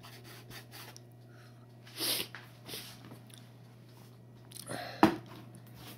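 Steady low hum of a Mondial air fryer running, with a short breathy rush about two seconds in and a sharp knock near the end.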